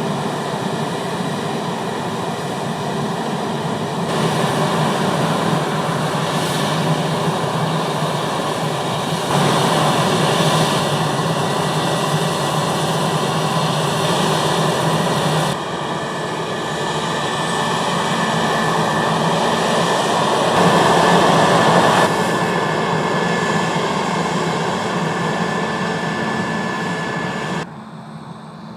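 Heavy harvest machinery running steadily under load: the engine and threshing drone of a large combine harvester and tractor, cut into several clips that change abruptly every few seconds. A steady high whine runs through the middle part, and the sound drops away sharply near the end.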